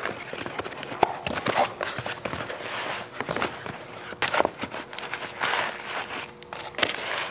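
Cardboard box flaps being pulled open and crumpled brown kraft packing paper rustling and crinkling as a hand digs through it, with scattered light taps and knocks.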